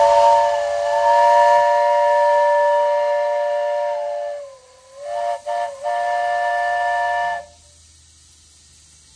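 Steam whistle on a 7¼-inch gauge model of the BR 8P 'Duke of Gloucester' locomotive, in full steam at about 90 psi, sounding several notes together. It gives one long blast of about four seconds whose pitch sags as it closes, then two short toots and a second blast of about a second and a half. A faint hiss of steam remains once the whistle stops.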